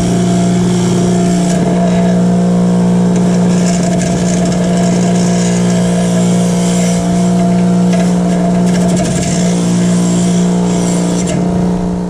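Bench grinder with a wire wheel running steadily, its motor humming, while limescale-crusted heating elements from an EcoSmart tankless water heater are drawn back and forth across the spinning wire brush with light pressure. A scratchy brushing noise rides over the hum as the wire scrubs the scale off.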